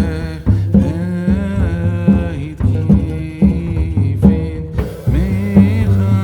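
Background music: a sung melody with a steady bass line and drum beat.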